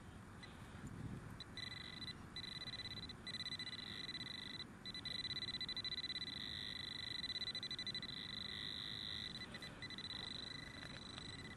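Fisher F19 metal detector giving a steady, high, rapidly pulsing target tone as its coil passes over a buried target. The tone comes in about a second and a half in, breaks off briefly a few times, is strongest in the middle and fades out near the end.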